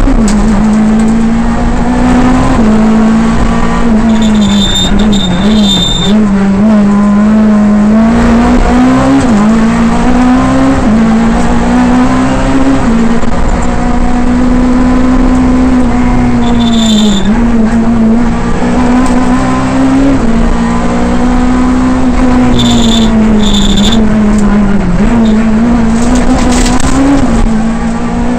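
Škoda Fabia Kit Car rally engine at full effort inside the cabin, holding high revs with quick dips and recoveries as the driver shifts gears. A few short, high-pitched tones cut through it several times.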